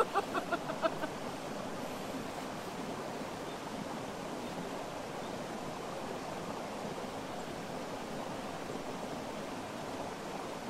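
A person laughing in a quick run of about six short bursts, over in the first second. After that only a steady rushing of running water continues.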